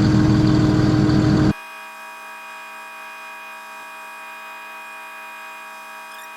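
A concrete pump truck's engine running steadily. About a second and a half in it cuts off abruptly to a much quieter, steady hum of several fixed tones.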